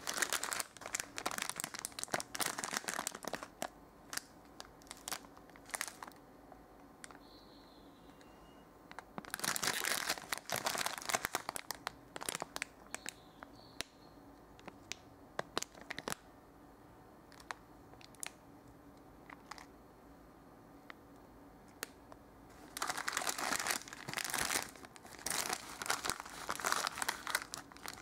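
Plastic wrapper of a MAMA instant noodle packet crinkling and tearing as it is handled and opened. The rustling comes in three spells, at the start, around ten seconds in and over the last five seconds, with scattered sharp clicks between.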